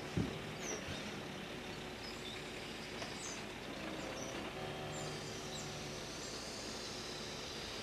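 Scania R440 timber truck's engine running steadily to drive the V-Kran V13 loader crane's hydraulics, with its tone shifting about four to five seconds in as the crane lifts a log. A knock just after the start, and birds chirping faintly.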